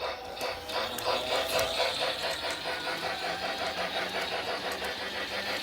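Battery-powered Lionel G-gauge Polar Express toy locomotive running in reverse on its track, its motor and gears whirring with a rapid, even ticking.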